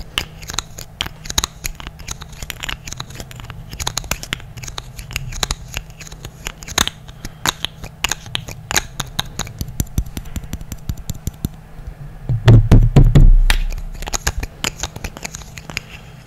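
Close-mic ASMR hand sounds: quick taps, clicks and scratching right at a condenser microphone. About three quarters of the way through, a second of loud low bumping comes as the hands knock against the microphone.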